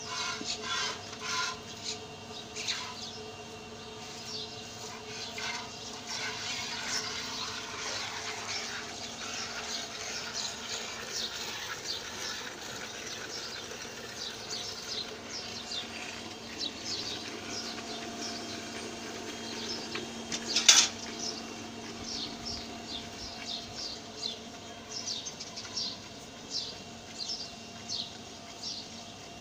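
Hand-milking into a steel bucket: jets of milk squirting into the pail in a steady rhythm, about two squirts a second, over a faint steady hum. One sharp knock about two-thirds of the way through.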